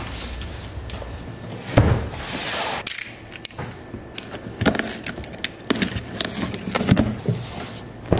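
Cardboard box being set down, cut open with a box cutter and unpacked: scattered knocks, clicks and rustles, with a thump about two seconds in followed by a short scraping noise.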